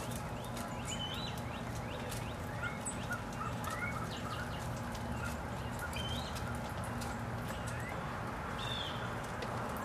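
Wild songbirds calling: scattered short chirps and brief rising whistled calls, a few every second or two, with faint high clicks, over a steady low hum.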